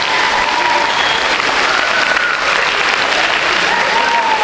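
Large crowd of children and adults applauding steadily in a sports hall, with a few voices calling out over the clapping.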